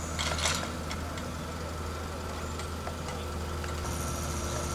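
Heavy truck engine running steadily, with a short clatter about half a second in and a high hiss joining near the end.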